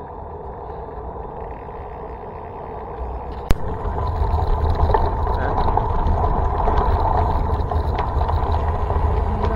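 Wind buffeting the microphone and tyre noise from a bicycle rolling downhill. It grows louder from about three and a half seconds in as speed builds, and a single sharp click comes at that point.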